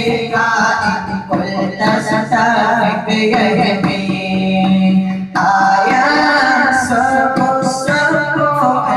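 A group of boys singing a devotional song together into microphones, amplified through a PA, with a long held note about four seconds in.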